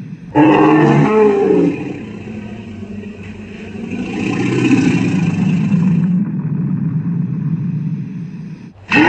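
Monster roar sound effects: a sudden loud roar about a second and a half long, followed by a longer, quieter roar that swells midway and fades. Another loud roar begins right at the end.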